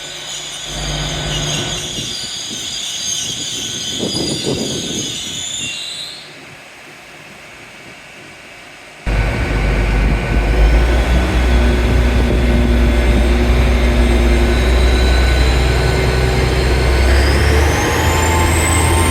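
Train in a station: high-pitched, wavering wheel squeal for the first few seconds. After an abrupt change about nine seconds in, a loud low rumble sets in, with a whine rising in pitch near the end.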